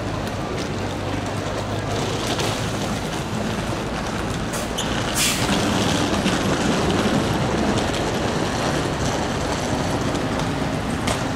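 Nissan Diesel Space Runner UA city bus with its diesel engine idling at the stop. About five seconds in there is a short, sharp hiss of air, and then the engine grows louder as the bus pulls away.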